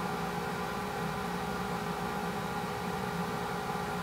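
A steady machine-like hum over a hiss, with several unchanging steady tones.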